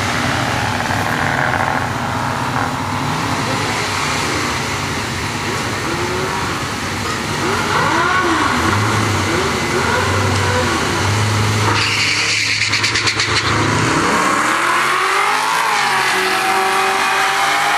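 Drag cars at the starting line, one of them a 1997 Camaro Z28 with a naturally aspirated LT1 V8. The engines idle and are blipped up and down, then launch hard about twelve seconds in and pull away down the strip, their pitch rising as they accelerate.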